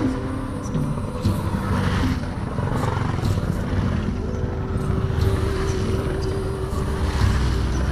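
Column of motorcycles riding past one after another on a wet road: engines running, with tyre hiss on the wet tarmac swelling and fading as each bike goes by.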